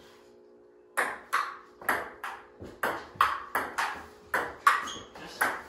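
Ping-pong ball clicking back and forth off paddles and table in a rally: about a dozen sharp hits, two to three a second, starting about a second in.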